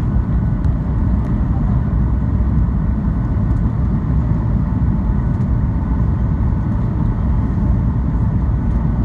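Steady cabin noise of a Boeing 737 in flight on descent: a loud, even rumble of engines and airflow with a few faint steady whining tones above it.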